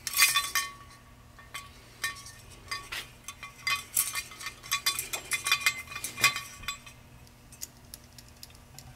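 Rapid light metallic clinks and ticks with a short ring, from a Ford tractor pinion gear assembly in a vise as it is turned by a string pulled with a spring scale to check bearing preload; its bearings are running dry, with no oil. The clinking stops about two-thirds of the way through.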